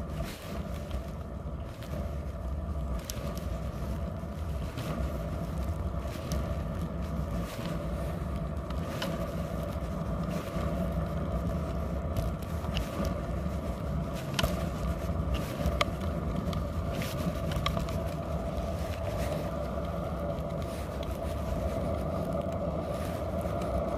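Kick scooter's small hard wheels rolling over asphalt: a steady drone over a low rumble, with scattered sharp clicks and ticks as the wheels run over bumps in the pavement.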